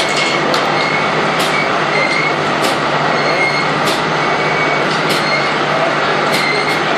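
Steam-powered sawmill running: a loud, steady mechanical din with a low hum and an intermittent high whine, and a sharp click or knock about every second.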